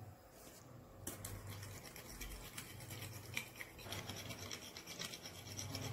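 Metal spoon stirring beaten eggs in a glass bowl: a faint, fast scraping that starts about a second in.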